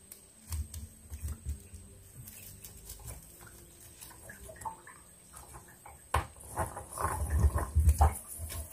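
Scattered knocks and light water sounds. A busier run of thumps and splashing starts about six seconds in.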